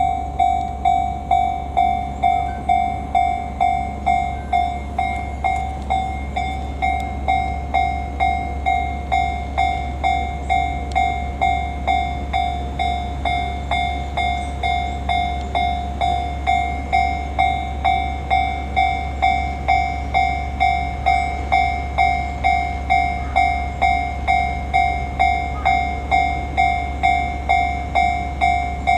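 Japanese level-crossing warning bell ringing steadily, an evenly repeated electronic clang about one and a half times a second, over a steady low rumble.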